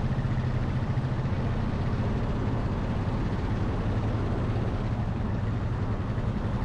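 ATV engine running steadily, with a low, even pitch that does not change.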